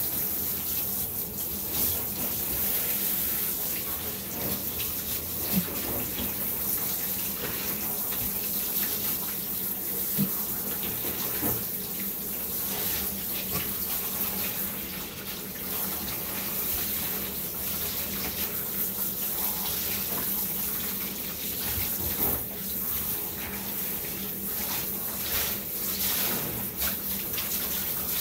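Handheld shower sprayer running steadily, water spraying over a small dog's wet coat and splashing into a bathtub. A couple of brief knocks stand out about five and ten seconds in.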